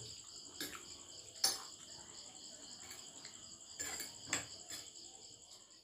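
Crickets chirping steadily, with a few faint clinks of forks against plates, the sharpest about one and a half seconds in.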